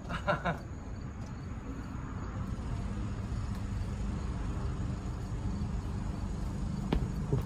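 A brief shout just after the start, over a steady low rumble, then two sharp knocks about half a second apart near the end.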